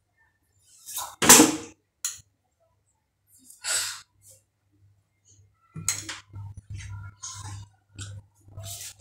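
Spoon scraping and clinking against a plate while scooping up rice and chicken: a loud scrape about a second in, another near four seconds, then a run of short clicks and scrapes in the second half.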